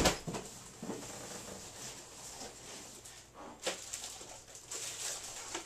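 Packing pieces being pulled out of a box and tossed aside: a loud thump at the very start, then rustling and scraping, and another knock a little past halfway.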